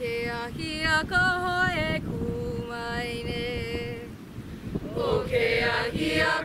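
A mixed group of male and female voices chanting a Hawaiian oli in unison, on long held notes that waver with vibrato.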